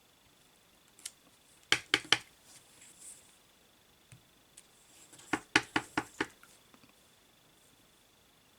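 Clear cling stamp on an acrylic block being tapped against an ink pad and pressed onto card: two quick runs of light clicking taps, three and then about five.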